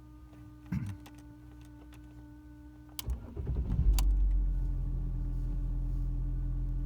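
New Messmer in-line fuel pump humming with a steady whine. About three seconds in, the engine cranks and starts, then settles into a steady idle.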